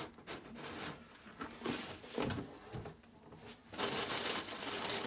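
Irregular rustling and light knocks, the handling noise of a sneaker being moved about, in bursts of varying loudness, louder around two seconds in and again from about four seconds in.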